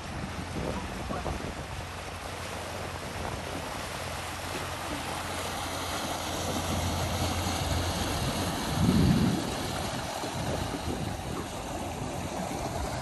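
Open-air river sound: wind on the microphone and moving water, under a low steady hum of a motor cruiser's engine. About nine seconds in there is a brief louder low rumble.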